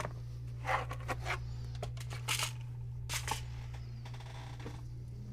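A few short scrapes and clicks from small parts being handled on a workbench, in four or five brief bursts within the first three and a half seconds, over a steady low electrical hum.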